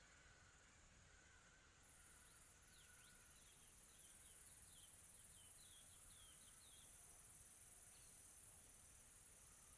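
Faint tropical afternoon ambience of crickets: a steady high-pitched insect drone that grows louder about two seconds in. Through the middle comes a quick run of short, falling chirps.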